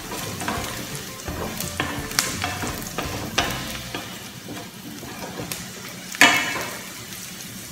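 Onions sizzling in oil in a stainless steel saucepan while a wooden spatula stirs them, scraping and tapping against the pan, with a sharper knock about six seconds in.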